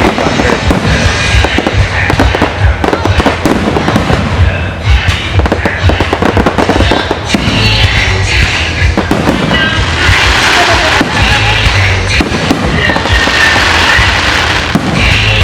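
Fireworks going off in a dense barrage of bangs, with stretches of crackling about ten and thirteen seconds in, over music.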